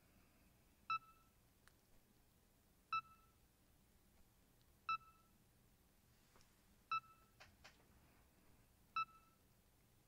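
BrailleSense 6 notetaker's progress beep: a short electronic tone repeating every two seconds, five times, like a heart monitor, signalling that a web search is still loading over a slow internet connection.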